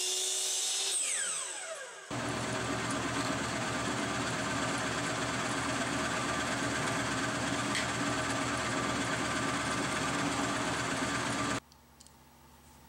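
A Hitachi miter saw's motor whine falls as the blade winds down over the first two seconds. Then a drill press runs steadily, drilling into a strip of wood, until the sound cuts off suddenly near the end.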